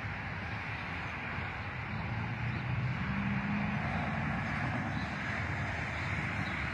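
Steady traffic on a highway: cars passing, a continuous hiss of tyres with a low engine hum, a little louder from about halfway through.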